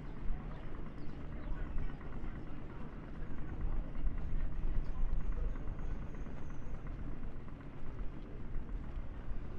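Steady low rumble of wind and road noise from riding a Revel electric moped, with no engine note.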